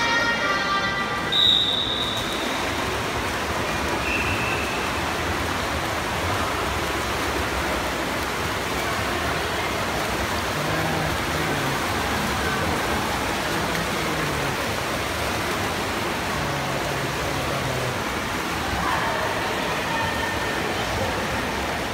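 A pitched start signal sounds for about a second and a half, with a short, sharp high beep at its end. Then comes a steady wash of swimmers' splashing and crowd noise echoing around an indoor pool hall during a swimming race.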